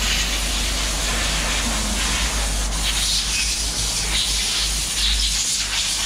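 Steady hissing spray with a low hum underneath.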